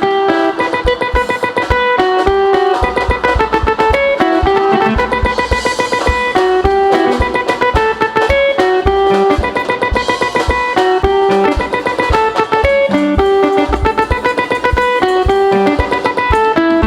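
Upbeat band music: a plucked guitar melody of quick, short notes over a steady low drum beat.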